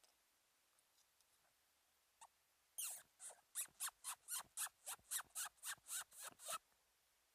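Psycho Tweety predator mouth call blown in a run of about fifteen short, high squeaks, about four a second, starting about three seconds in: an imitation of a small animal in distress, used to lure a red fox.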